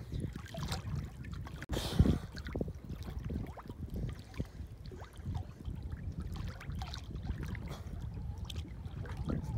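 Water lapping and splashing right at the microphone, held just above the surface, with a louder splash about two seconds in.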